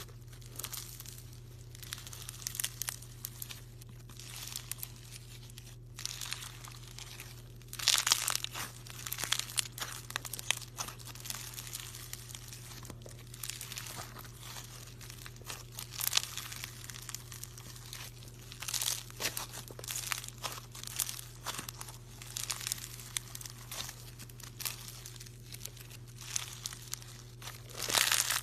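Slime being squeezed and stretched by hand, giving irregular crackling and crinkling, with louder clusters of crackles now and then over a faint steady hum.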